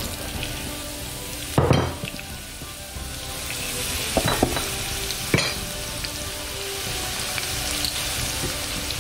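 Chopped onion, spring onion and leek sizzling steadily in hot oil in a frying pan. A few sharp knocks stand out, the loudest about one and a half seconds in.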